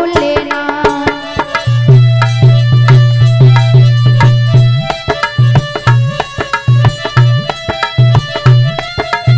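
Devotional bhajan accompaniment with fast tabla strokes, steady held melody notes and a deep bass note. The bass holds for a few seconds, then beats in short repeated pulses. A woman's singing voice holds the last word of a line at the start.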